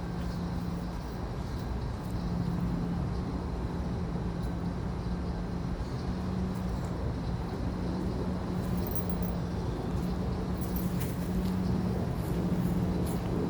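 Steady low mechanical rumble with a constant hum, and a few faint ticks in the second half.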